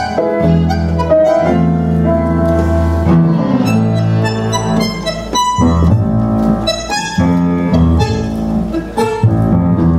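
Live Argentine tango music from a quartet: bandoneon, piano, bowed strings and double bass.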